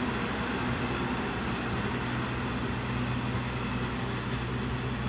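Steady low mechanical drone: a constant hum with an even hiss over it.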